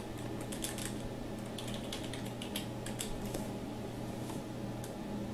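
Computer keyboard being typed on, quick clusters of key clicks as a web address is entered, thinning out near the end, over a low steady hum.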